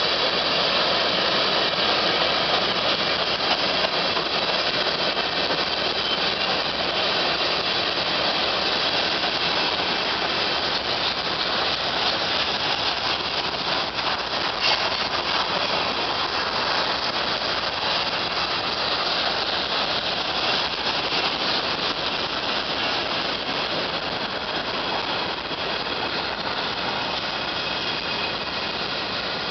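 Kansas City Southern freight train's covered hopper cars rolling past: a steady rumble and clatter of steel wheels on rail, with a thin high ringing over it, easing a little near the end.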